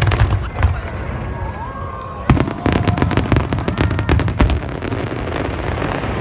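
Fireworks bursting overhead: a string of sharp bangs and crackles. The loudest bang comes about two seconds in, followed by about two seconds of dense crackling.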